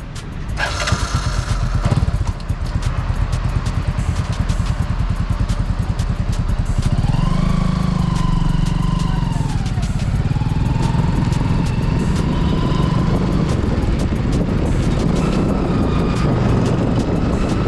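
Bajaj V15 motorcycle's single-cylinder engine running as the bike rides along, its note rising and then falling about halfway through as it pulls and shifts, then holding steady.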